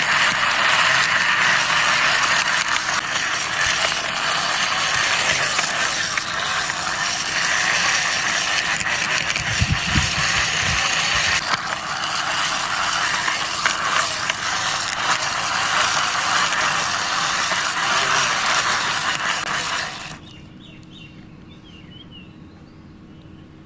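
Toy excavator pushed along by hand, its moving parts giving a continuous, dense rattling of fine clicks, like a ratchet; it stops about twenty seconds in.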